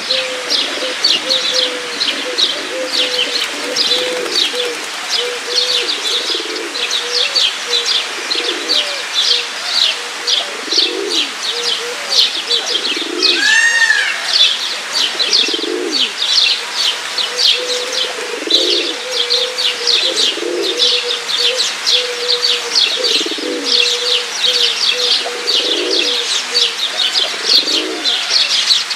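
Pigeons cooing in low phrases repeated every second or two, over constant high chirping of small birds. About halfway through there is one louder call that rises and falls.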